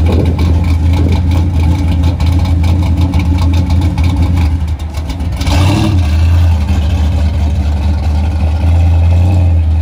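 Edelbrock-built 383 stroker V8 of an off-road pre-runner truck running with a steady pulsing exhaust note, then revving hard about five and a half seconds in as the truck pulls away.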